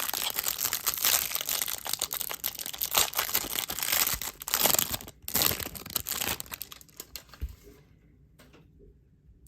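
Trading-card hanger box packaging being torn open, with dense crinkling and tearing for about seven and a half seconds and a short pause just after five seconds, then only faint handling.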